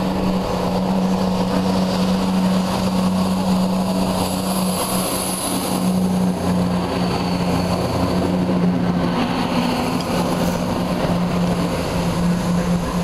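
Class 170 Turbostar diesel multiple unit running along the platform, its underfloor diesel engines giving a steady low drone.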